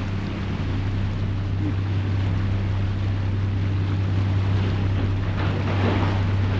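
Passenger ferry's engines running with a steady low drone over the rush of churning propeller wash and wind on the microphone. A short swell of rushing noise comes about five and a half seconds in.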